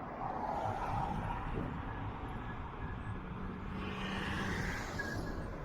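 Riding noise of an e-bike at speed in strong gusty wind: wind rushing and buffeting over the microphone over a steady low rumble, swelling twice.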